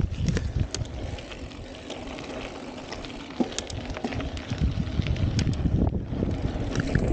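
Mountain bike riding over a dirt trail: tyres rolling on loose dirt, with scattered clicks and rattles from the bike and wind rumbling on the microphone. The noise eases off in the middle and builds again about halfway through.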